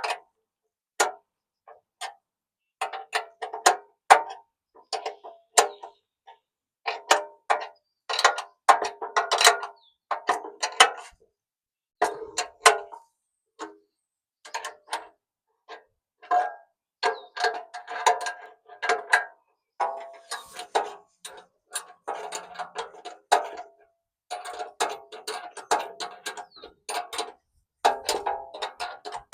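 Hand ratchet wrench clicking in irregular runs of quick metallic clicks, with short pauses between runs, as bolts are turned.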